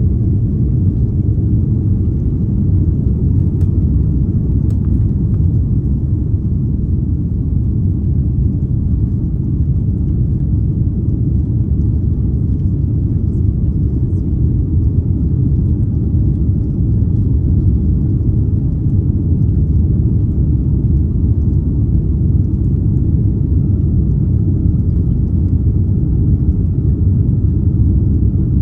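Steady low rumble of an Airbus A330neo's Rolls-Royce Trent 7000 engines and airflow, heard inside the economy cabin.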